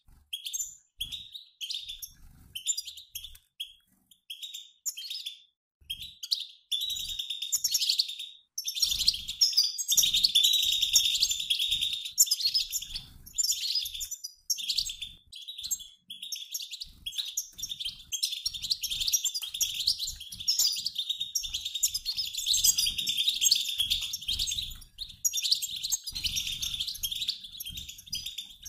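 A mixed flock of European goldfinches, males and females, twittering together, like a flock in flight: a stream of fast, high chirps and trills. It is sparse at first and thickens into a near-continuous chorus about eight seconds in.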